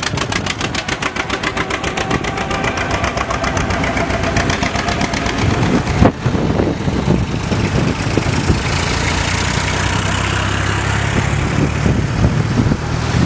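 Vintage tractor engines running as a line of tractors drives past on the road. For the first half there is a rapid, even exhaust beat, then a steadier, deeper engine drone. A sharp knock comes about six seconds in.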